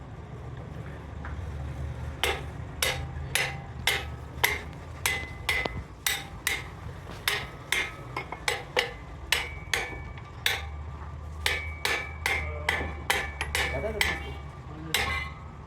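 Hammer blows on steel, a rapid, slightly irregular run of about two strikes a second. Each blow gives a sharp clang with a short metallic ring. A steady low hum runs underneath.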